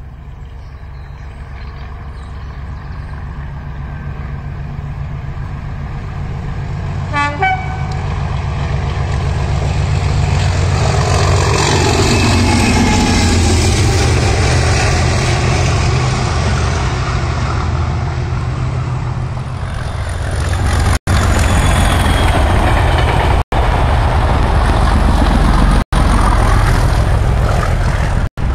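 A train approaching and passing close by on the line. A short horn toot comes about seven seconds in, and the rumble and wheel noise build to a peak in the middle as an electric multiple-unit passenger train goes by. After a dip, a second train of wagons passes close with loud, steady rumble and a windy hiss.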